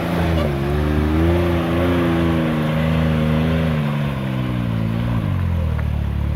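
Can-Am Maverick X3 X RS side-by-side's turbocharged three-cylinder engine pulling at low revs as it crawls over rocks, its pitch rising and falling as the throttle is worked. The engine note drops near the end.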